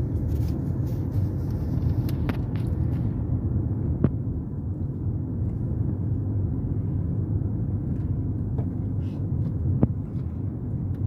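Steady low rumble of a car's engine and tyres heard from inside the cabin while driving, with a few brief sharp clicks about 2, 4 and 10 seconds in.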